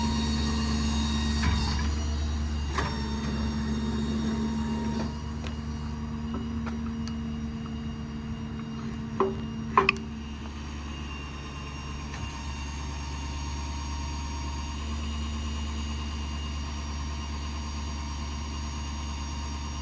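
Ford 6.7 L Power Stroke diesel running steadily and driving the hydraulics while the service-bed crane is operated, with a few sharp clicks, two of them close together about ten seconds in.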